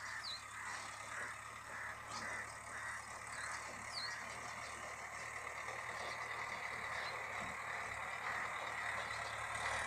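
Outdoor background: a steady low hum under a rhythmic, pulsing chirp that repeats about three times a second, with two short higher chirps, one just after the start and one about four seconds in.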